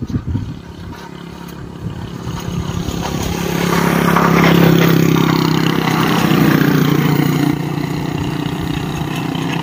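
Motorcycle engines of a sidecar tricycle and another small vehicle passing close by. Their steady hum builds over the first few seconds, is loudest about halfway, and keeps up as they move off down the road.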